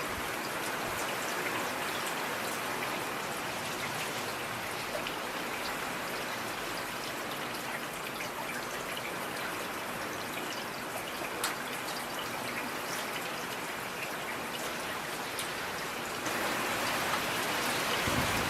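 Steady rain falling, with individual drops ticking through it, growing a little louder near the end.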